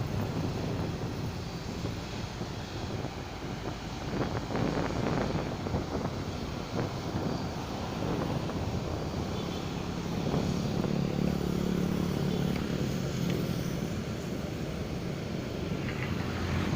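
Boeing 777-200 jet engines running, a steady noise with a low hum that swells a little about ten seconds in.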